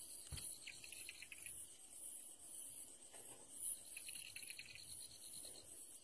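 Faint outdoor ambience: a steady, high, pulsing insect trill, with two short runs of rapid ticking chirps, one near the start and one about four seconds in.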